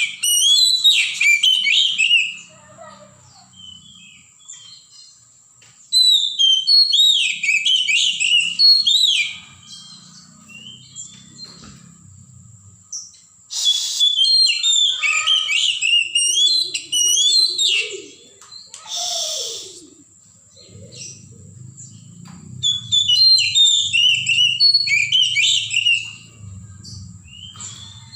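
Oriental magpie-robin (kacer) singing: four bouts of quick, varied whistled and warbling phrases, each a few seconds long with pauses between, over a steady thin high tone.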